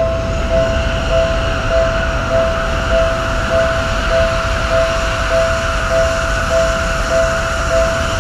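Japanese level-crossing warning bell ringing its repeated two-tone 'kan kan' about every 0.6 s. Under it runs the rumble and rush of a passing train.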